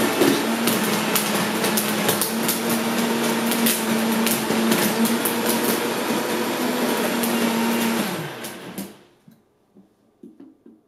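Vitamix blender running on a thick, icy smoothie while the tamper is pushed down into the jar, with many sharp knocks from ice and the tamper against the container. About eight seconds in, the motor's pitch falls as it winds down and stops, followed by a few faint clatters.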